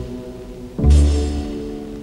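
Background film-score music. A heavy chord with a deep bass dies away, and a new one strikes suddenly just under a second in and fades in turn.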